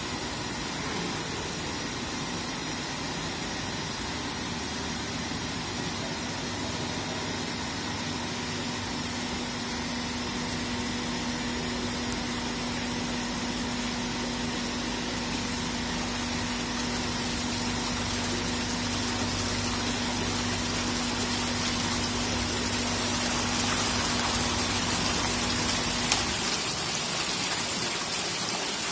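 Water gushing steadily, with a steady low hum underneath that stops with a click about 26 seconds in.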